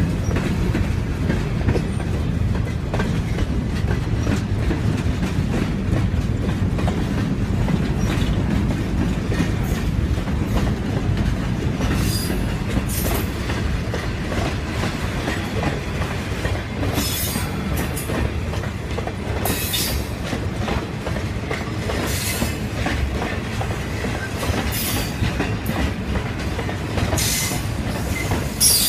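Freight train cars rolling past close by: a steady low rumble of steel wheels on the rail with clickety-clack over the joints. Several short bursts of high-pitched wheel squeal come in the second half.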